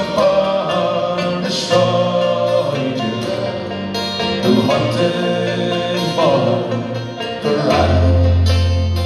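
Acoustic guitar and banjo playing an Irish ballad tune live through a PA. A strong, steady deep note comes in near the end.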